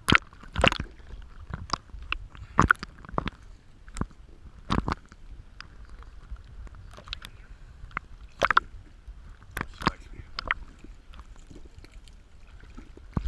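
Choppy waves sloshing and slapping against a camera held at the waterline, with irregular sharp splashes roughly once a second over a low rumble of moving water.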